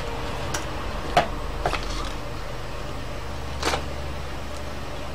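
A steady low hum with a few scattered sharp clicks and taps, the loudest a little over a second in and a quick double click near the middle.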